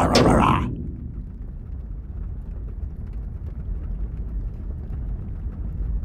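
A crashing impact dies away in the first second, then a steady low roar of flames burning inside a snack vending machine, with faint crackles.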